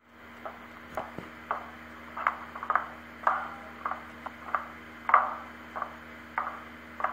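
Slow, cautious footsteps on creaking wooden floorboards: light knocks and creaks about every half second, unevenly spaced, over a steady low hum.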